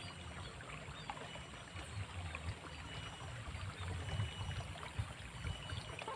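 Faint outdoor water sound of a small ditch trickling, with irregular low rumbles throughout.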